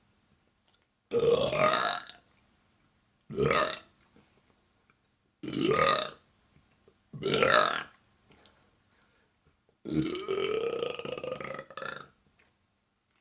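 A woman burping five times in a row, with short silent gaps between. The burps are brief and rise in pitch as each begins, and the last one is drawn out for about two seconds.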